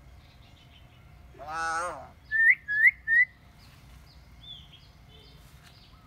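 Caged hill mynas calling: one brief voice-like call, then three loud, quick rising whistles, then a few faint chirps.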